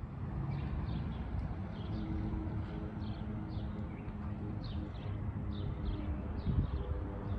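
Bird chirping repeatedly, short high calls about twice a second, over a steady low rumble.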